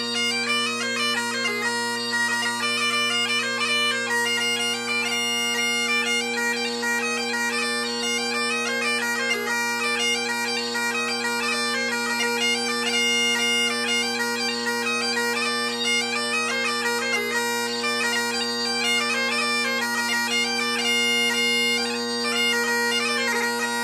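Great Highland bagpipe playing a quick jig, the chanter's fast-changing melody over the steady unbroken sound of the drones.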